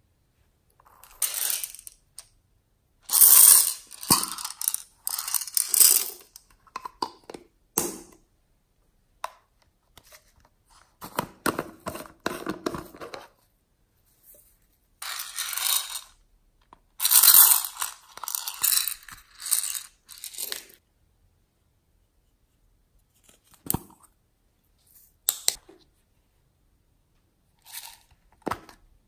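Small plastic makeup cases being opened and handled over a bowl of glossy slime. Irregular bursts of sticky crackling and sharp plastic clicks come with pauses between them.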